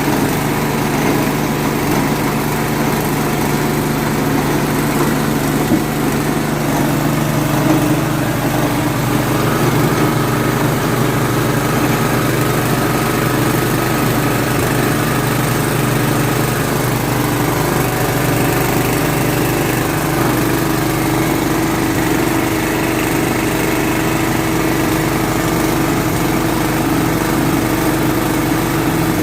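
Feed chopper machine running steadily, a small engine droning without let-up.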